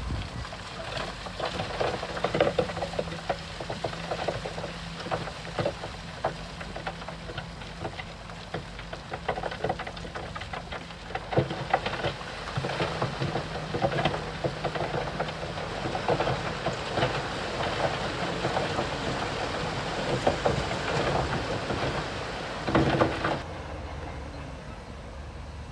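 Diesel engine of heavy earthmoving equipment running while loose stone clatters and knocks continuously in many sharp strikes. The clatter stops suddenly about 23 seconds in, leaving only the engine.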